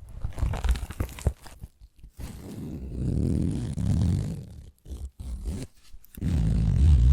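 Fingertips tapping and scratching right at the microphone: a few light taps, then long rough scratching strokes with a dull low rumble, the loudest stroke near the end.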